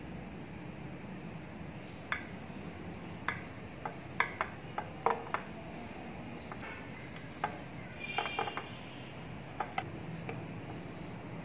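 Knife and cake server tapping and scraping against a glass baking dish while a slice of baked clafoutis is cut and lifted out: about a dozen light, irregular clicks, one near the end ringing briefly.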